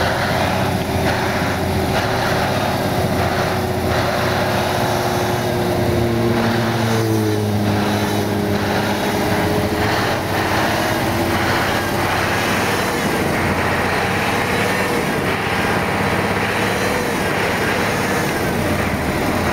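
Scania R620's V8 diesel engine running steadily, its pitch shifting slightly around the middle.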